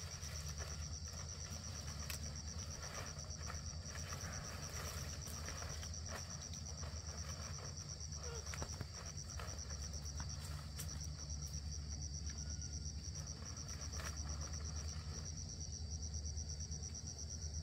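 Insects trilling steadily in a fast, high-pitched pulsing chorus, over a steady low rumble and a few light clicks.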